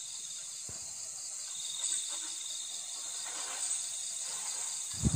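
Crickets chirping in a steady high trill, an insect-night ambience opening a karaoke backing track. Music comes in right at the end.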